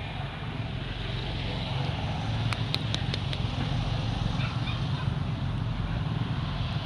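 Steady low rumbling outdoor background noise, with a quick run of about five short, sharp ticks around two and a half seconds in.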